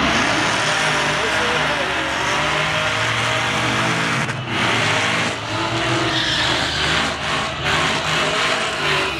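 Drag-racing car doing a burnout: the engine is held at high revs while the rear tyres spin and squeal against the track.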